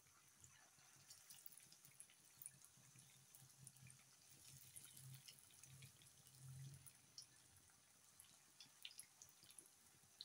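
Batter-coated chicken wings frying in hot oil in a pan: faint, irregular crackling and popping.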